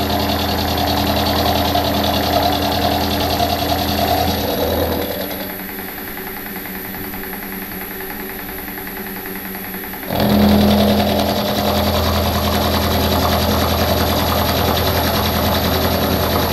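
A machine tool running while squaring the last side of a small metal block: a steady motor hum with cutting noise over it. About five seconds in, the cutting noise and most of the hum drop away for about five seconds, then the full running sound comes back.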